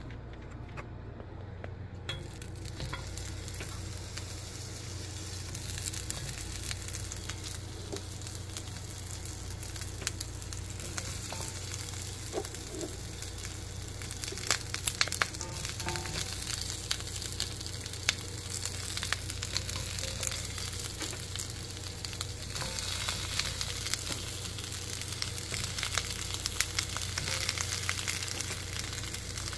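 Sliced onions sizzling and crackling in hot oil in a HexClad hybrid stainless-nonstick pan. The sizzle sets in about two seconds in and grows louder about six seconds in, with a steady low hum underneath.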